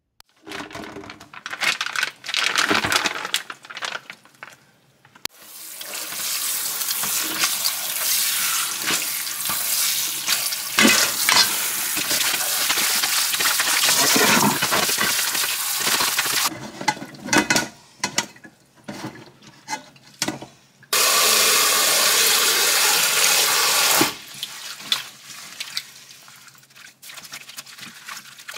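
Water running and splashing in a stainless steel kitchen sink while perilla leaves are rinsed in a metal bowl. A steady stream runs for about eleven seconds, stops, then runs again for about three seconds, with splashes and light knocks in between.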